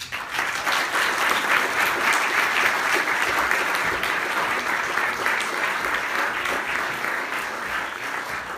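Audience applauding: dense clapping that starts all at once and tapers off slightly toward the end.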